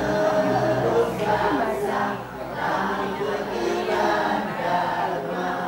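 A group of students singing a song together in unison, led by a man singing into a microphone.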